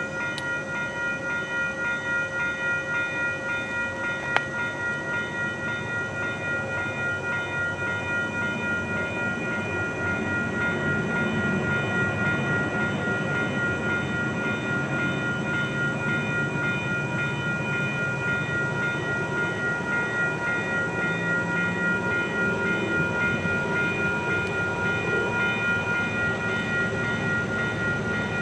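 A train approaching, its low rumble building slightly partway through, under steady ringing tones that pulse evenly throughout. A single sharp click sounds about four seconds in.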